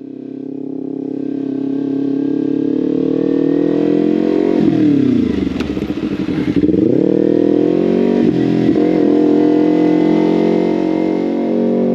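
Motorcycle engine running under way, its note fading in at the start and then holding steady. About four and a half seconds in the pitch falls and then climbs back up, with a smaller dip and rise a couple of seconds later.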